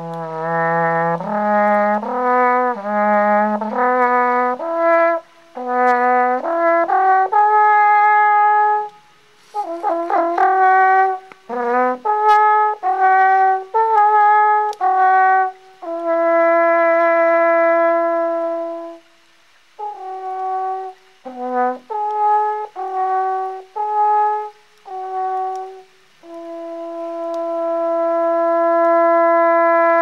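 Wooden alphorn played solo: a slow melody of separate notes with short pauses between phrases. A long held note comes just past the middle, and a final long note swells in over the last few seconds.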